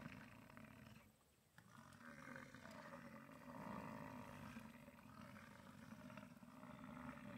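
American bison bull bellowing in the rut: a long, low, rough roar that ends about a second in, then after a short pause another drawn-out bellow that carries on.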